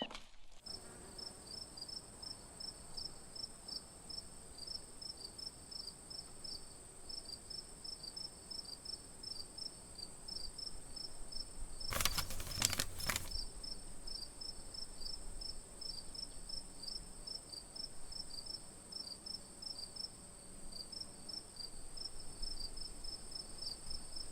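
Night insect chorus: a steady high-pitched trill with crickets chirping in a quick, regular pulse of about four chirps a second. A brief cluster of sharp knocks comes about halfway through.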